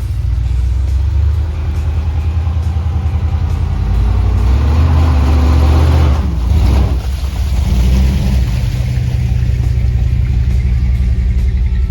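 Dodge 440 big-block V8 running under load: it revs up over a couple of seconds about halfway through, eases off suddenly, then settles back to a steady run.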